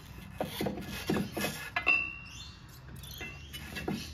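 Metal knocks and clinks from working a tight new rubber track onto a mini excavator's undercarriage, with one sharp metal strike about two seconds in that rings briefly.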